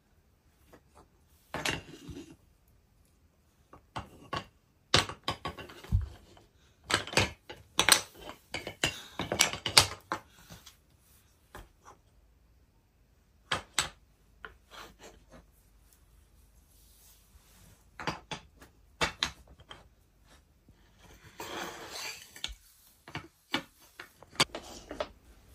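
Wooden toy train track pieces clacking and knocking against each other and the hardwood floor as they are handled and fitted together: scattered runs of sharp knocks with short quiet gaps.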